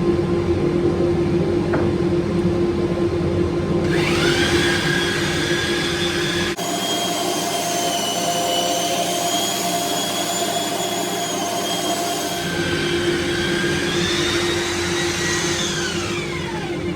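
Electric power tool running over a steady machine hum. Its whine rises to speed about four seconds in and winds down near the end.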